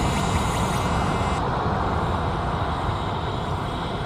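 Jet engines of a Boeing 787-8 airliner running as it rolls down the runway for takeoff: a steady, loud rumble and rush of engine noise.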